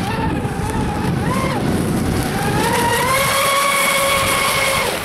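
A radio-controlled speedboat's motor running at full speed with a high-pitched whine over the rush of spray. The pitch climbs about two and a half seconds in, holds steady, then drops away just before the end as the throttle comes off.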